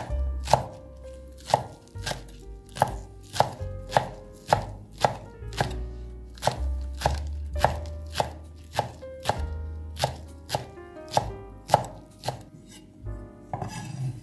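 Chef's knife chopping green onions on a wooden cutting board: a steady run of knocks, a little under two a second.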